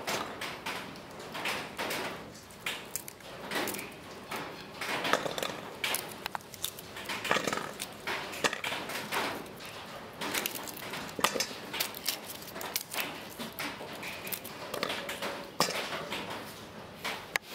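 Garlic cloves and cut vegetables being dropped and set by hand into a stainless steel mixing bowl: irregular light knocks and clinks against the metal.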